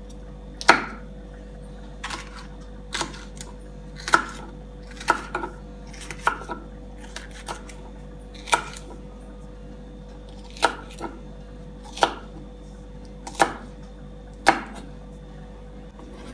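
Kitchen knife chopping yellow sweet pepper on a wooden chopping board: sharp, separate knocks of the blade on the wood at an uneven pace, about one a second, sometimes two close together.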